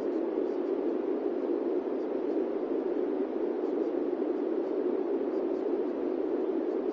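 Steady masking noise, a dull even rush strongest in the low-middle range, running unchanged with no pauses or events.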